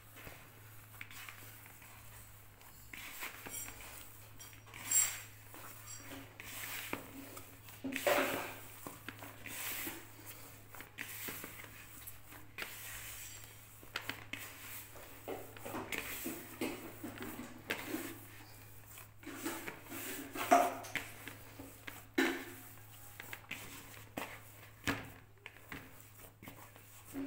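Hands kneading and pressing a soft cookie dough in a plastic bowl: irregular soft squishes and pats, with the bowl now and then knocking or scraping on the tray, over a steady low hum.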